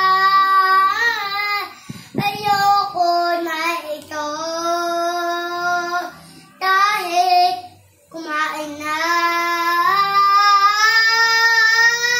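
A young boy singing, holding long drawn-out notes with short breaks between phrases. There is a brief knock about two seconds in.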